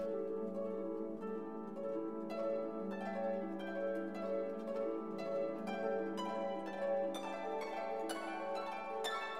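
Background music of plucked-string notes, harp-like, played over a steady held low tone.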